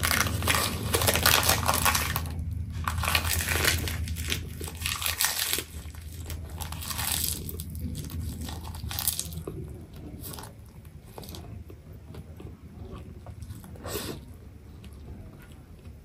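Crisp roasted seaweed sheet crinkling and crunching close to the microphone as it is handled around noodles and eaten, loudest in the first six seconds. After that come softer chewing sounds with a few sharp clicks.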